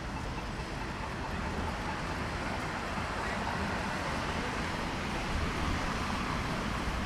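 Traffic on a wet city street: a steady hiss of tyres on wet road over a low rumble, swelling a little in the second half as vehicles pass.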